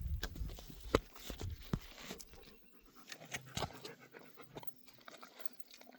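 A dog panting, with scattered clicks and a sharp knock about a second in.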